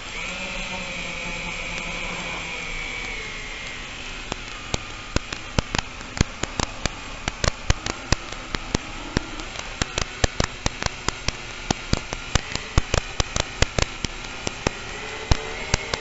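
FPV drone's electric motors whining, with slight shifts in pitch for the first few seconds. About four seconds in, sharp crackling clicks start and grow more frequent, several a second, over a steady hiss.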